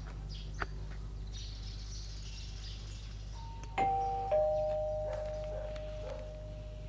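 Two-note ding-dong doorbell chime: a higher note and then a lower one, each ringing and slowly fading, about halfway through. A short click comes shortly before, and a steady low hum runs underneath.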